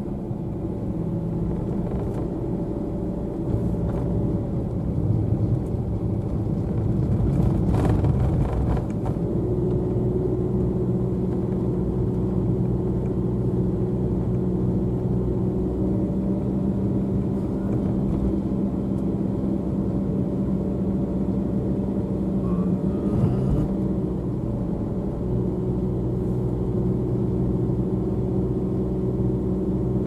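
Car engine running steadily and tyre noise, heard from inside the cabin while driving, with a louder, rougher stretch about seven to nine seconds in.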